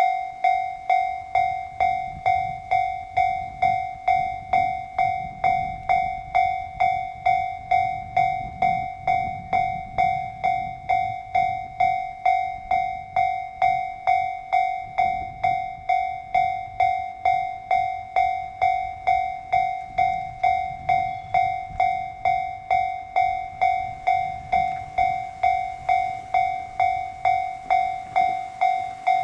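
Japanese railway level-crossing warning bell ringing steadily, about two strikes a second, over the low rumble of a diesel train.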